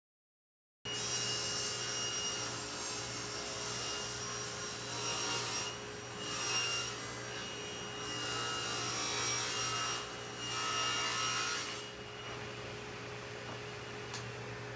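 Table saw ripping a veneered plywood panel along the fence: the saw starts up about a second in, the cut comes in several loud spells over a steady motor hum, and near the end the blade runs on more quietly, free of the wood.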